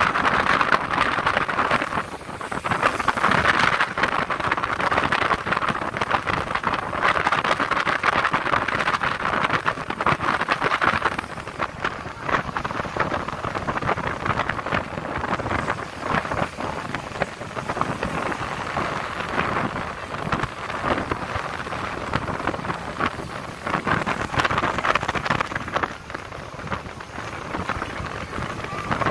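Rushing, splashing water churned up along the hull of a large container ship passing close by, mixed with wind on the microphone: a steady noisy wash that swells and eases.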